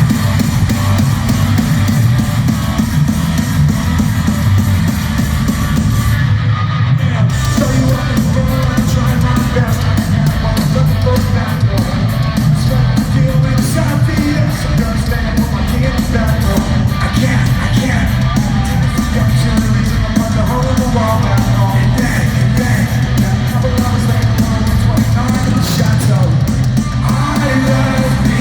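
Live pop-punk rock band playing loud through a concert PA, with drums, guitars and yelled singing. The cymbals and highest sounds drop out briefly about six seconds in before the driving beat comes back.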